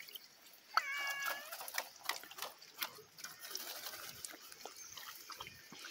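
Small splashes, drips and rustling as a mesh umbrella fish trap is handled in shallow water. About a second in there is one brief, high-pitched squeak.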